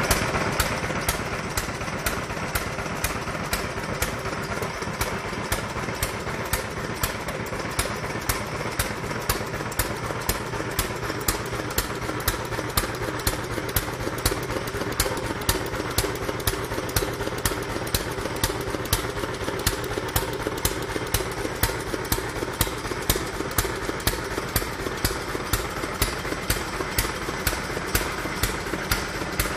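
1916 International Harvester Mogul CZ 2.5 hp stationary engine running unloaded at about 500 rpm, freshly brought back to life. It beats out an even rhythm of sharp strokes, about three a second, over steady running.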